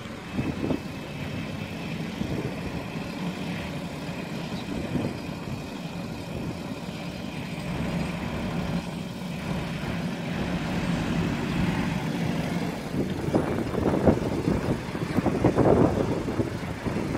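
Tractor engine running steadily, driving the hydraulics that tip a Metal Fach T711 tipper trailer's body sideways. The hum grows louder and rougher in the last few seconds.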